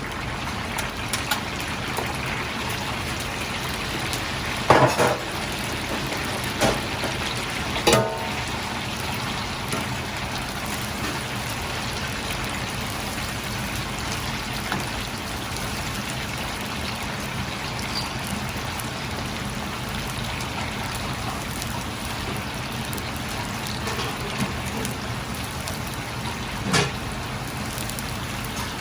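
Steady hiss and trickle of a restaurant kitchen's wok station while spicy powder is mixed into fried chicken, with a few sharp metal clinks of utensils, loudest about five and eight seconds in and again near the end.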